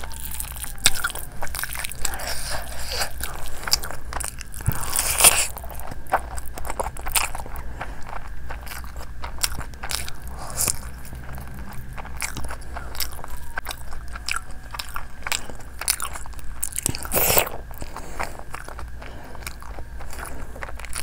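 A person eating with the hand: biting into and chewing spicy roasted chicken, with many small crunches and clicks. The loudest bites come about five seconds in and again about three-quarters of the way through.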